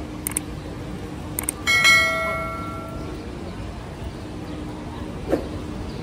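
A bell struck once, ringing out and fading over about a second and a half, with a few light clicks before and after it.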